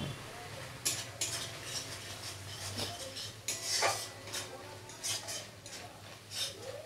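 Metal spatula scraping and stirring thick masala paste around a metal kadai, a string of irregular scrapes roughly two or three a second. The masala is being fried on the stove.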